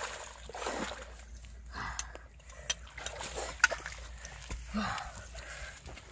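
Water splashing and dripping as a freshly caught fish is lifted out of shallow water and carried onto the grass, with scattered sharp knocks and a few short vocal sounds.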